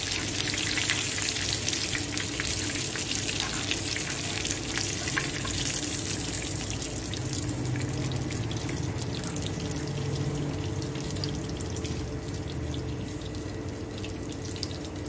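Beef-mince chapli kababs frying in hot oil in a flat pan: a steady sizzle with fine crackles, growing a little quieter about halfway through.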